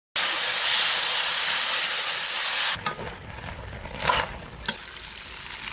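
Food sizzling in a hot pan: a loud, steady hiss that cuts off suddenly near the middle, followed by quieter room sound with a couple of light clicks.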